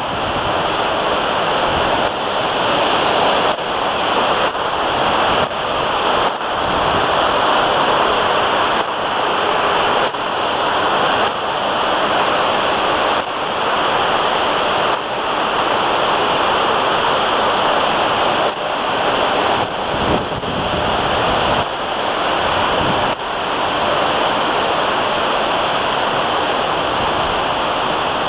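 Wake churned up behind the cruise ship Norwegian Pearl: a loud, steady rush of foaming water, with brief dips every second or two.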